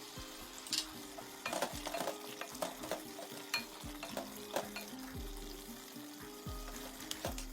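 Beef frying in yogurt, spices and oil in a pot, sizzling, while a spoon stirs and scrapes the pot with irregular clicks. Soft background music underneath.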